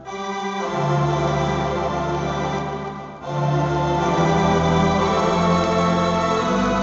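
Yamaha Tyros4 keyboard playing sampled Blackpool Tower Wurlitzer theatre organ voices: held organ chords with a deep bass line, breaking off briefly about three seconds in and coming back fuller.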